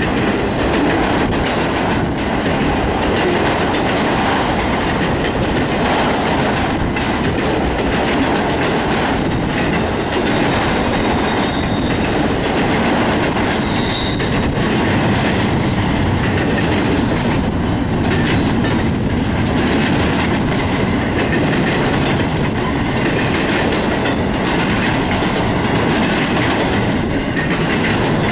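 A freight train's autorack and double-stack container cars rolling past: steel wheels running on the rails in a steady, loud rumble, with clicking as the wheels cross rail joints.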